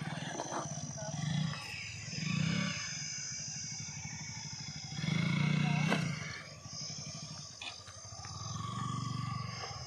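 Motorcycle engine running and revving in repeated swells, four rises in throttle with the loudest about halfway through, as a sports bike is ridden up a steep, slippery dirt slope.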